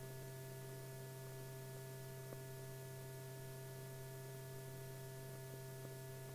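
Steady low hum with a faint hiss, the background noise of an old film soundtrack between narration lines; no sound from the work itself.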